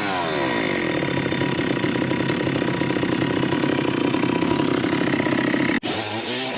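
Small two-stroke chainsaw engine running at a steady low speed as its revs fall away from a rev. It cuts off suddenly near the end, and a wavering pitched sound takes over.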